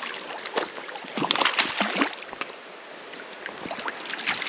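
Hooked brook trout splashing and thrashing at the water's surface as it is brought to the net. The irregular splashes are loudest a second or two in.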